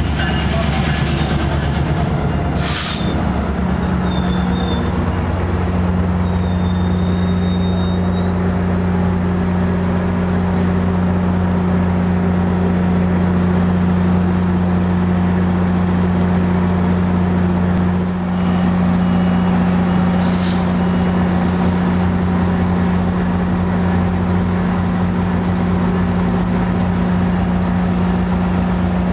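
MPI MP36PH-3C diesel locomotive of a MARC train running with a steady deep drone while standing at the platform. Two short hisses of air come about three seconds in and again near twenty seconds.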